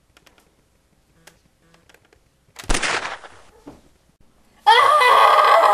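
A sudden loud shot-like burst about two and a half seconds in, dying away within half a second. About two seconds later a loud, high, wavering voice-like wail starts abruptly, its pitch stepping up and down; it is the loudest sound here.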